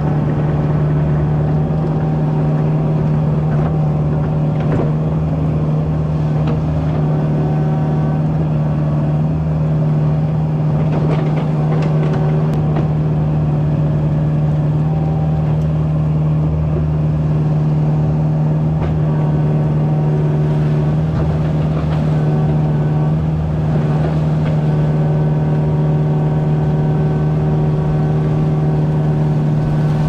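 Kubota mini excavator's diesel engine running steadily, heard from the operator's seat, with a higher whine coming and going as the hydraulics work the bucket through beaver-dam mud and sticks. A few faint knocks of the bucket on debris.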